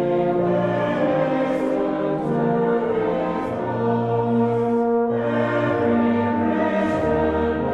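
Brass band playing a slow hymn tune in held chords.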